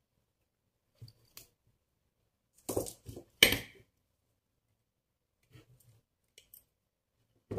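Side cutters snipping copper craft wire, with glass crystal beads clinking as the wired branches are handled. Two sharp, loud clicks come close together about three seconds in, with fainter ticks around them.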